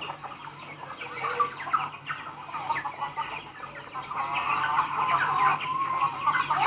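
Flock of chickens, hens and roosters, clucking in a steady stream of short calls that grows louder in the second half.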